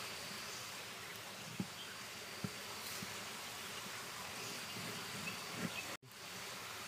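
Steady outdoor background hiss with a faint, steady insect drone, and a few soft knocks of a cleaver cutting a lemon on a wooden board. The sound cuts out for an instant about six seconds in.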